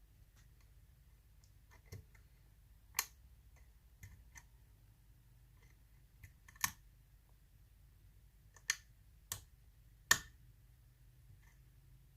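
Lock pick working the pins of a Russwin mortise cylinder during single-pin picking: about eight sharp, irregular clicks as pins are lifted and set, the loudest in the second half.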